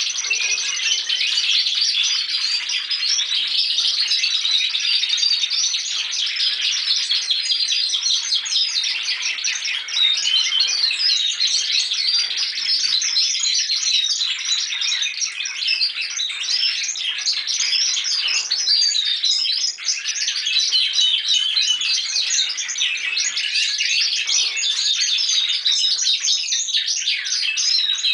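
Young Spanish Timbrado canaries singing continuously as they practise their developing song: rapid, overlapping high trills and warbles from several birds at once.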